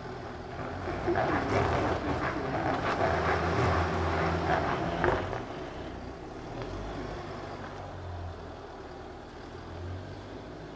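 Hyundai Terracan SUV's engine running at low speed as it crawls over cobblestone articulation humps, with a steady low hum. It is louder and rougher for about four seconds from about a second in, then settles back to a quieter, even hum.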